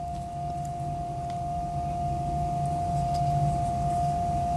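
Background music: one long, steady held note over a low drone, slowly getting louder.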